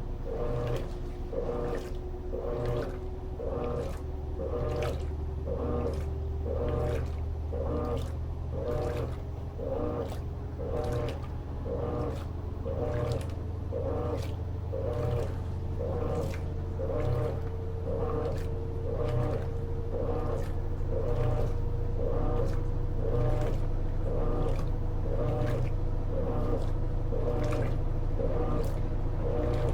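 Electrolux LT13B top-load washing machine agitating a load of sheets and towels: an even rhythm of swishing strokes about once a second. A steady low hum and a faint tone that slowly rises in pitch run underneath.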